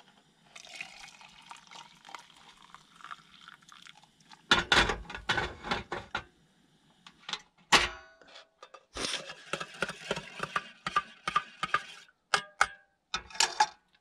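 Hot water poured from a saucepan into a stainless steel travel mug for coffee, a hissing pour over the first few seconds. Then the metal pan is set down on the camping gas stove with loud knocks, and a spoon and the mug clink several times.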